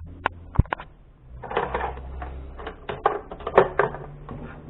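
Clicks and knocks of the plastic housing of a Braun juice extractor's motor base being handled, with a few sharp clicks at first and then a busier run of taps and rattles from about a second and a half in.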